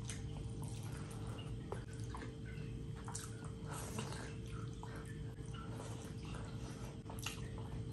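Wet, sticky chewing and mouth smacks from eating handfuls of rice mixed with curry by hand, heard as irregular short clicks and squelches over a low steady hum.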